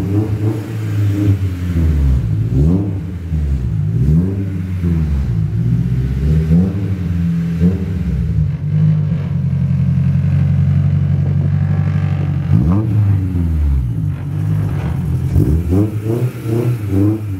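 Honda S2000's four-cylinder engine running through a freshly fitted Spoon N1 quad-tip exhaust, blipped repeatedly with short revs that rise and fall every second or two. There is a longer rev about two-thirds of the way through and a quick run of blips near the end.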